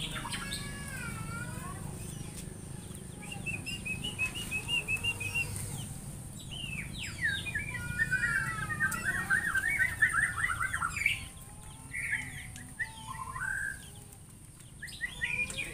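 Small songbirds calling around a feeding spot. A run of quick high chirps comes about three seconds in, then a long, busy chattering warble from about seven to ten seconds, with shorter calls after. A steady high hiss and a low rumble run underneath, the rumble fading about halfway through.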